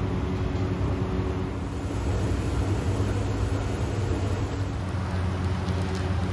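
Steady low mechanical hum under an even rushing noise: the constant background of a working commercial kitchen.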